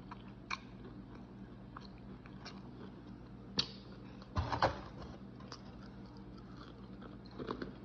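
Close-up chewing and crunching of crispy fried food: scattered sharp crunches, the strongest about three and a half and four and a half seconds in, over a faint steady hum.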